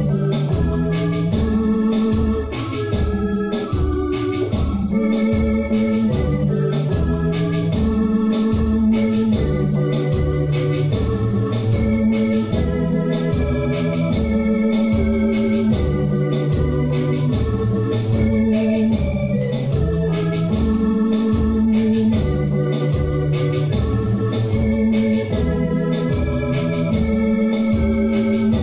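Electronic keyboard played with an organ sound: sustained chords over a moving bass line, with a steady drum beat underneath, in an instrumental church offertory hymn.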